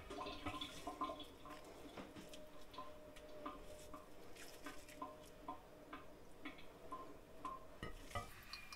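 Small wet plops and soft clicks, about two a second, as pinches of raw ground meat are dropped into tomato sauce in an enameled cast-iron pot, with a wooden spoon stirring the sauce at first.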